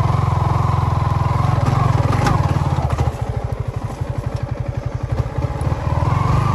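Yamaha MT-15's single-cylinder engine running under throttle. About three seconds in it drops back so that its separate firing pulses can be heard, then picks up again near the end.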